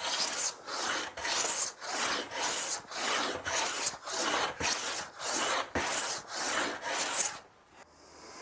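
Small metal hand plane taking repeated short cutting strokes along the edge of a wooden board, about two strokes a second, each a rasping swish as a shaving comes off. The edge is being planed down to a marking-gauge line. The strokes stop about a second before the end.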